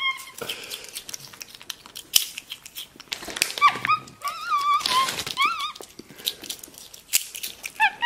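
A capuchin monkey crunching veggie straws and rustling the snack bag, with a run of high, wavering squeaks from about three and a half seconds in and one more near the end.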